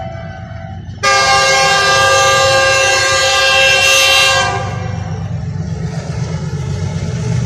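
Pakistan Railways GEU 40 diesel-electric locomotive of an approaching express train, sounding its horn in one long blast of several notes together, starting sharply about a second in and lasting about three and a half seconds. Under it and after it, the locomotive's low engine rumble grows louder as it approaches.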